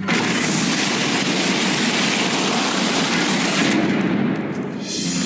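Cartoon sound effect of a torrent of water bursting through a door: a loud rushing splash that starts suddenly and keeps going for nearly four seconds before fading out. Music comes back in near the end.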